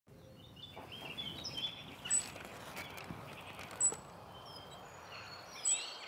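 Small birds chirping and twittering over a low background hiss, with short sharp high peeps about two, four and nearly six seconds in.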